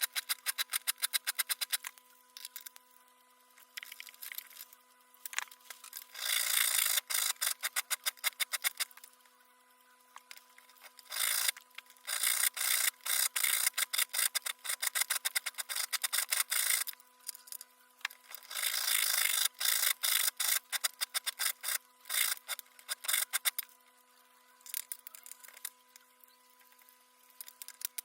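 Rapid rasping strokes of a hand tool worked back and forth, in runs of a few seconds broken by short pauses, over a faint steady hum.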